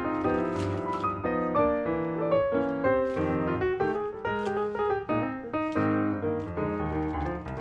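Background piano music, a run of melodic notes.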